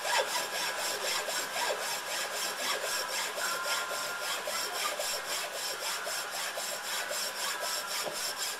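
Small hacksaw cutting through a 3D-printed plastic propeller blade, in steady, rapid back-and-forth strokes.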